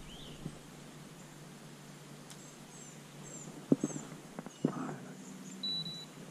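Small birds chirping high and faintly, short calls repeating again and again, with a few sharp knocks from rod and tackle handling in the boat just after the middle.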